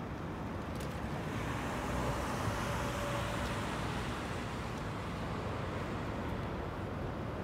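City street traffic noise, with a car passing by that is loudest about two to three seconds in.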